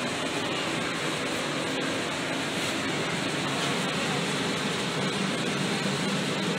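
Steady rushing noise, even and unbroken, with no meows or other distinct sounds.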